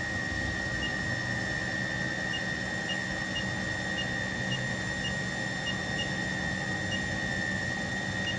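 Haas TL-1 CNC lathe spindle running steadily at 1,500 RPM, giving a constant high-pitched whine over a low hum.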